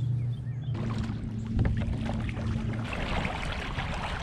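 Pedal-drive fishing kayak under way: water rushing along the hull over a steady low hum from the drive, the rushing growing louder about three seconds in.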